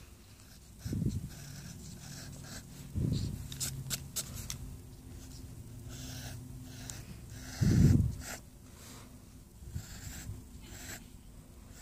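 Pencil scratching on sketch paper in short strokes, with a few low thumps of the paper or phone being handled close to the microphone; the loudest thump comes about eight seconds in.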